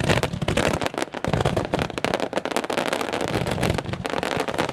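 A fireworks finale barrage: many bursts and crackles follow each other in quick, overlapping succession.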